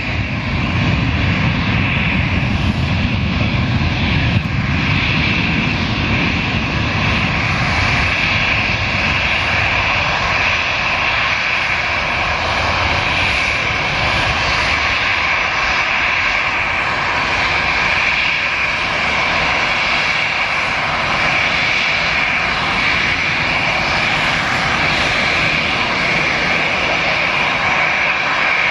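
Boeing 737-800's CFM56-7B jet engines running as the airliner taxis, a steady high whine over a low rumble; the rumble is heavier in the first few seconds while the plane is close, then eases.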